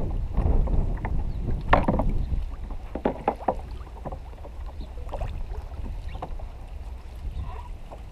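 Wind buffeting the microphone over water lapping at a kayak's hull, with a few sharp clicks and knocks about two seconds in and again around three seconds in.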